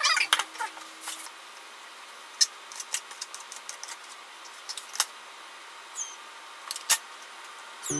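A kitchen knife tapping a plastic cutting board a few times, with separate sharp clicks spaced a second or more apart, as shiso leaves are cut. A short high squeak comes about six seconds in.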